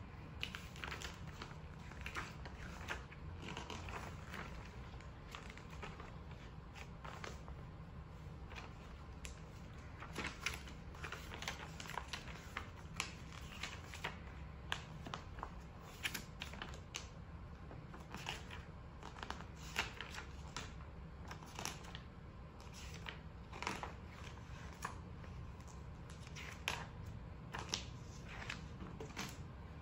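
Handling noise: irregular light clicks and crinkling rustles of paper and plastic being moved about on a fabric play mat, over a steady low hum.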